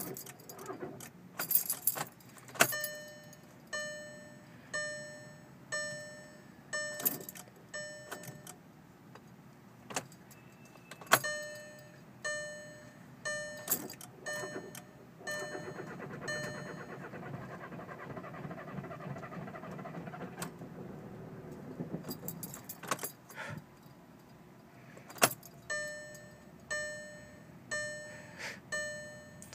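A 2011 VW Jetta TDI's dashboard warning chime dings about once a second, broken by sharp clicks of the key and switches. For about six seconds in the middle the starter cranks the diesel engine without it catching, and then the chime carries on: a no-start that the owner suspects is a fuel delivery problem.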